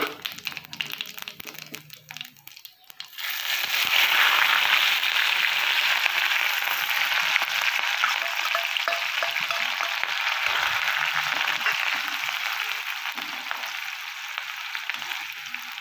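Chopped green chillies tipped into hot oil and cumin seeds in a steel kadhai: a loud sizzle starts suddenly about three seconds in and slowly dies down while they are stirred with a spatula.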